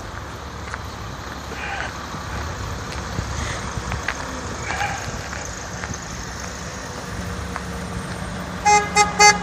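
A car horn honks three short times in quick succession near the end, over the steady low rumble of vehicles.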